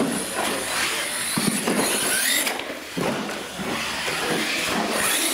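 Losi LMT radio-controlled monster truck running over the track: a thin electric-motor whine with faint short rising pitches, over a steady hiss of tyres and hall noise.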